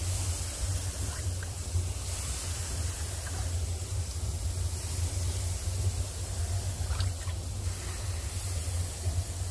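Water poured by hand from a galvanized bucket into a metal kettle through its lid opening, in a few small pours and drips, over a steady low rumble and hiss.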